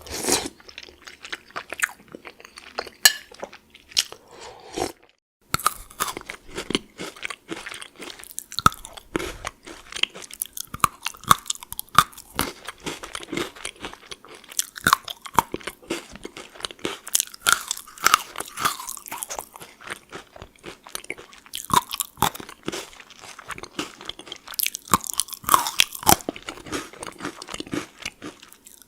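Close-up crunching of Pocky sticks, thin chocolate-coated biscuit sticks, being bitten and chewed: a dense run of crisp crackles. Before a brief silence about five seconds in, there is sparser, softer chewing of chicken noodle soup.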